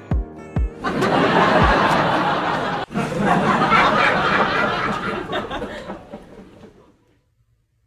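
People laughing, loud and continuous with a brief break just before the middle, then trailing off into silence.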